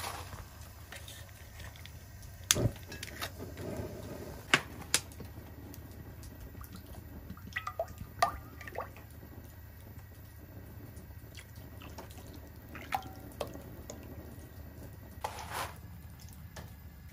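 Cooking oil glugging and dripping as it is poured from a plastic jug into a metal pot, with a few sharp knocks and clicks, over a steady low rumble.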